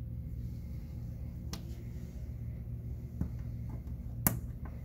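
A few small clicks and taps from hands handling a small RC receiver and its wires on a desk mat, the sharpest about four seconds in, over a steady low hum.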